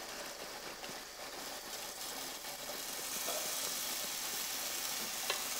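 Hot water pouring from a glass jar into a hot pot of browned veal, tomatoes and peppers: a steady hiss of pouring and sizzling that slowly grows a little louder as the pot fills, with a wooden spoon stirring.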